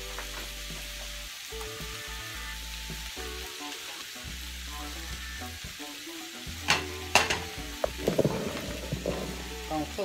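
Sausage, onions and bacon frying in a nonstick skillet, a steady sizzle, as spoonfuls of bacon grease go in. A couple of sharp taps about seven seconds in, followed by a louder burst of sizzling.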